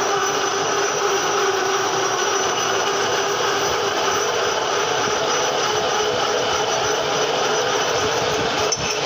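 Metal-working lathe running steadily under power, a continuous machine noise with a steady hum in it. It breaks off for a moment near the end.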